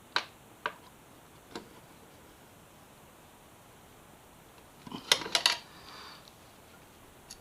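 Metal hand tools clicking and clinking on a bolt as it is fitted to a Yamaha FZ6R's shifter and rear-set bracket. A few single clicks come in the first couple of seconds, then a quick cluster of clinks about five seconds in.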